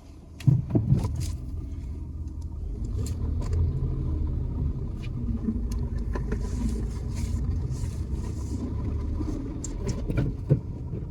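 Car driving, heard from inside the cabin: a steady low rumble of engine and road noise, with a few sharp knocks and clicks about half a second in and again near the end.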